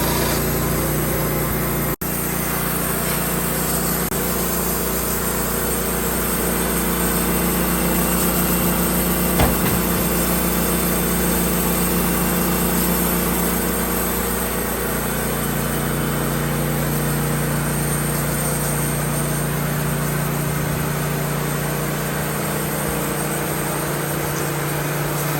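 Wood-Mizer LT15 portable band sawmill running steadily on its engine while cutting a log, with a short knock about nine seconds in.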